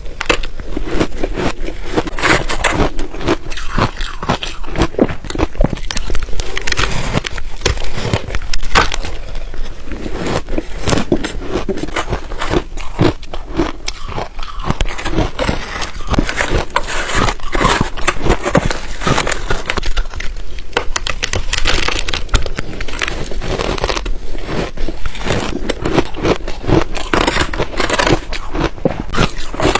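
Ice being bitten and chewed, with dense, irregular crunching and crackling and no pause.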